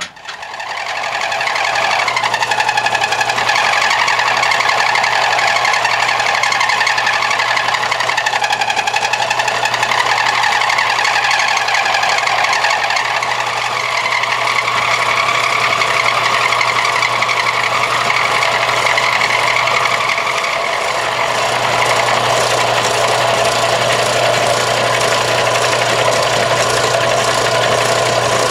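End mill taking a tenth-of-an-inch side cut along the edge of a rough cast-iron casting. It makes a loud, steady cutting noise with a wavering ringing tone on top and a low hum underneath, building up in the first second as the cutter bites in.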